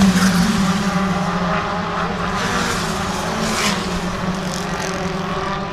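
A pack of touring race cars passing at full throttle, several engines at high revs at once, slowly growing fainter as the field moves away.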